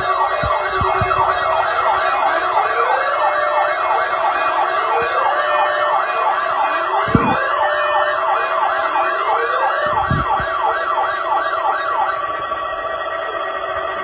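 Sirens sounding together: a fast up-and-down yelp, with a slower rising wail that repeats every couple of seconds. The yelp stops about twelve seconds in. A few low thumps sound under it.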